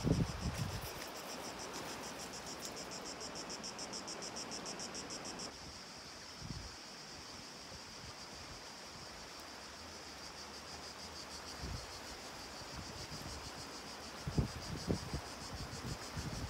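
Insect chorus of cicadas or crickets: a steady, high-pitched, finely pulsing buzz that shifts a little in pitch about five seconds in. A few low thumps come through, the loudest near the end.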